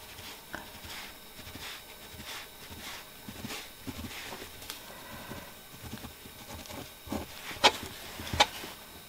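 Light handling noises from denim and a pattern template being positioned on a work surface: soft rustling and scattered taps, with two sharper clicks near the end.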